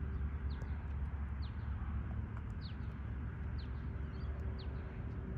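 A bird gives short chirps that fall in pitch, about once a second, over a steady low rumble.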